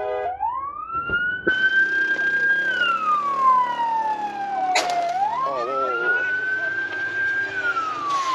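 Emergency vehicle siren wailing, its pitch slowly rising, holding and falling, twice over, with a sharp click about five seconds in.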